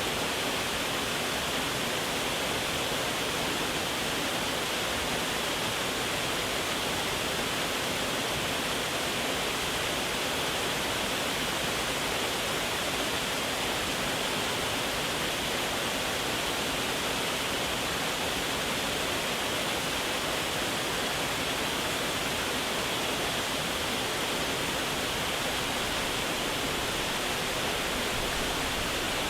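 Waterfall: falling water rushing in a steady, even roar with no change.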